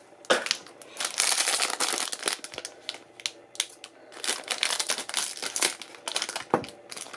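Foil blind-bag wrapper crinkling in the hands as it is handled and opened, in several bursts, the longest lasting about a second.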